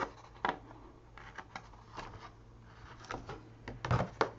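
Small scissors snipping along the edge of a sheet of paper, with the paper rustling as it is handled: a scatter of short, sharp snips and crackles, the loudest two near the end.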